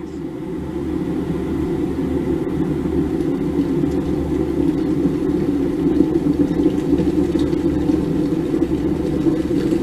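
Electric kettle heating water towards the boil: a steady low rushing rumble that swells over the first second and then holds.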